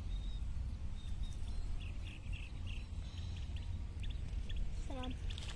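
Outdoor ambience with a steady low wind rumble. There is a run of short, high chirping squeaks about two seconds in and a brief falling call near the end.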